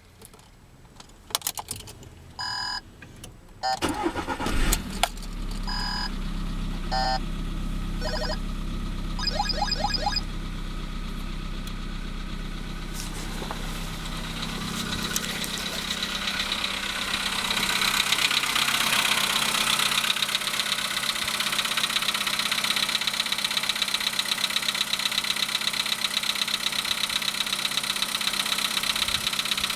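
VW Polo's 1.6 CFNA petrol engine cranking and catching from cold about four seconds in, then idling. From about halfway through, a fast, even knock rides on the idle and becomes clearer. This is the cold-engine knock that the owner puts down to the pistons. A few short electronic beeps and some clicks come before and just after the start.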